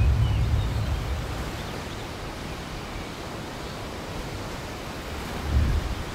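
Ocean surf washing on a beach: a steady, even rushing hiss, with a low rumble that fades over the first two seconds and swells briefly near the end.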